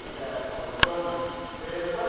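A single sharp crack of a .22 LR pistol shot, very brief, a little under a second in.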